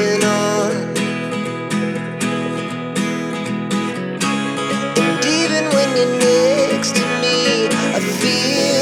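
Background music led by acoustic guitar, plucked and strummed, with a wavering melody line over it.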